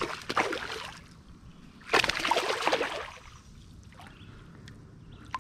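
Creek water sloshing and splashing in two bursts, each about a second long and about two seconds apart, with a faint running-water hiss between them.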